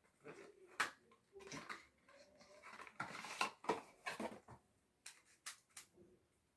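Irregular clicks and knocks of hard plastic being handled, with a brief rustle about three seconds in, as the windmill pyraminx puzzle is taken out of its packaging.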